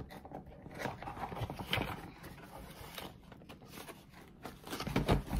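A cardboard toy box being opened by hand: the flap pulled open and the box scraped and rustled. A few louder knocks come near the end.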